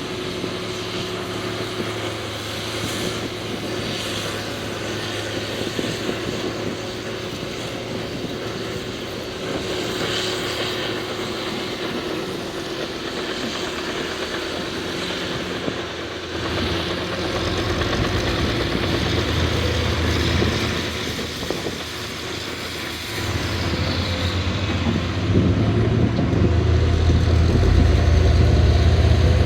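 John Deere 850J crawler dozer's diesel engine running steadily, swelling louder and deeper twice in the second half.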